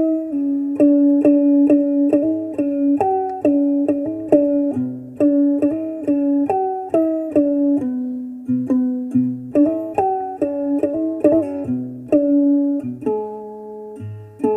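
Background music on a plucked string instrument: a melody of separately plucked notes, a few a second, over low bass notes.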